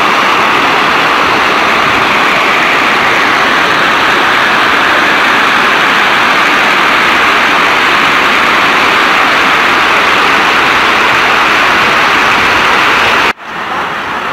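Loud, steady rushing of turbulent floodwater. About a second before the end it cuts off abruptly, replaced by a quieter, similar rush.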